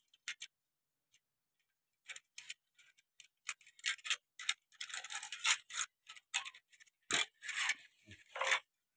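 Metal clicking and scraping as a sickle blade's tang is pushed into an aluminium pipe handle held by hose clamps. A few sharp ticks at first, then denser scraping and clinking from about two seconds in, loudest near the end.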